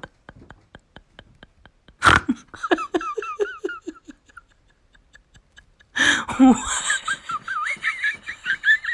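A person laughing in two spells of giggling, the first starting suddenly about two seconds in and the second about six seconds in. Before the laughter there is a faint, even ticking about four times a second.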